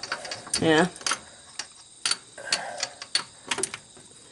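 Socket wrench on spark plugs: a handful of sharp, irregular metallic clicks as the plugs are worked loose.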